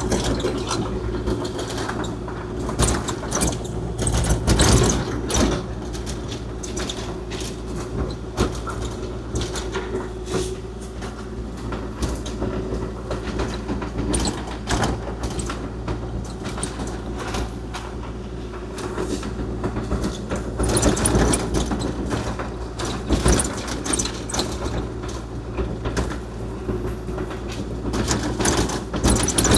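Kubota KX040-4 mini excavator's diesel engine running steadily, with frequent irregular clanks and rattles from the machine working.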